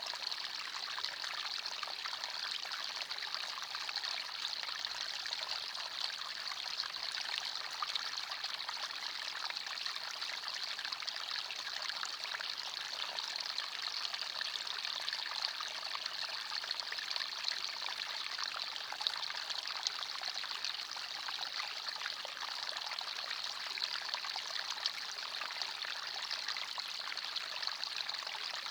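Small forest stream flowing and trickling over stones, a steady bright babble without a break.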